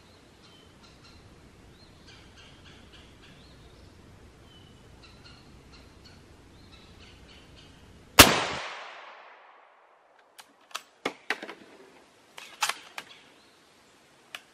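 A single shot from a CZ 527 Carbine bolt-action rifle in 7.62x39 about eight seconds in, ringing out for about a second, followed by a string of short sharp metallic clicks as the bolt is worked. Faint bird chirps before the shot.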